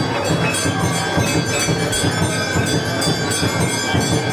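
Temple bells clanging in a fast, steady rhythm during an aarti, with ringing tones held under the strokes, mixed with devotional music.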